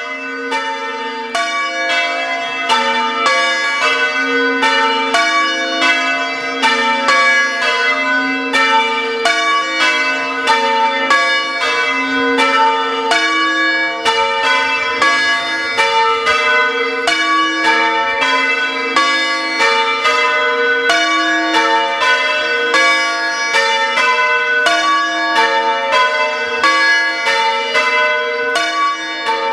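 A small ring of church bells being rung full-circle in changes, the bells striking one after another in an even, unbroken rhythm, each note ringing on into the next.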